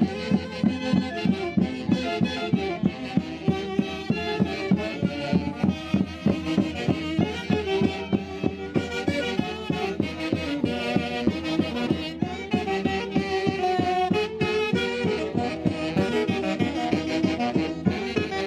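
Andean orquesta típica of the Mantaro Valley playing Santiago fiesta music: saxophones and violins over a steady quick beat.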